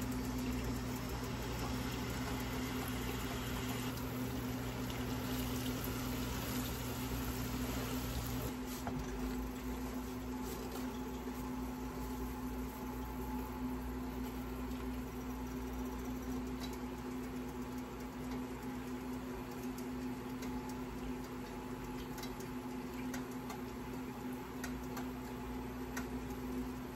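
A honey-butter sauce simmering and sizzling softly in a large pan, under a steady electrical hum. A lower hum cuts out about a third of the way in.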